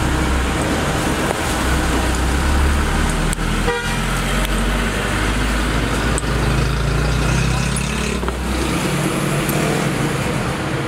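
Steady din of road traffic with car horns and a low hum, which drops away near the end.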